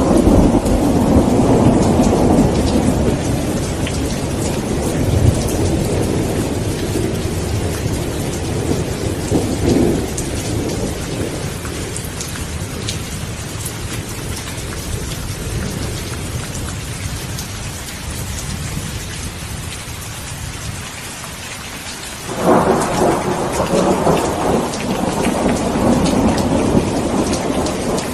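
Rain falling steadily with thunder: a rumble dies away over the first ten seconds or so, and a new peal breaks suddenly about 22 seconds in and rumbles on to the end.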